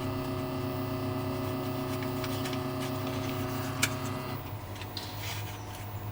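CNC milling machine's Z axis feeding the tool slowly down at a reduced feed rate, its drive giving a steady whine of several held tones while the tool is brought onto a paper card to touch off its length. The motion stops about four seconds in, just after a short click, and starts again near the end.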